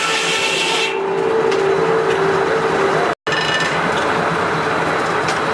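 Steam-powered circular sawmill cutting a log: the blade whines as it runs through the wood, then a rasping, scraping sound of sawing.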